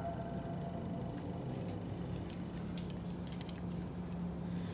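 Faint, scattered light clicks and ticks, a few clustered a little past the middle, over a steady low hum.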